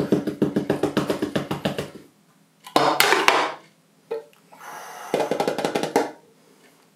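A quick drum roll of rapid taps, about ten a second for some two seconds. Then clattering and knocking as a metal flan tin is turned out onto a plate and tapped on top to loosen the leche flan.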